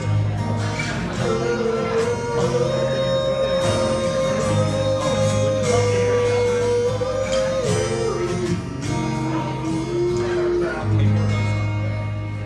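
Live acoustic guitar music: a long held note rings over low sustained notes, then gives way to a lower held note near the end.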